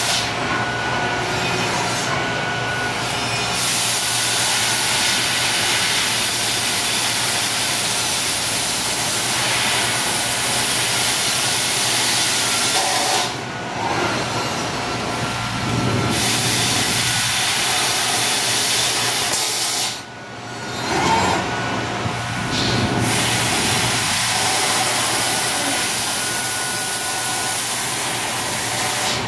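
5-axis sheet metal laser cutting steel tubing: a loud, steady hiss while the beam cuts. It breaks off briefly about halfway through and again about two-thirds through, as the head stops cutting and moves to the next cut.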